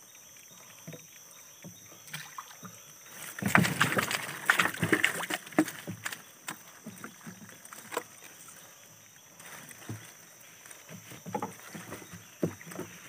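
Knocks, clicks and scraping as a mesh prawn trap is shifted about in the bottom of a small boat. The loudest, densest scraping comes from about three and a half to five and a half seconds in.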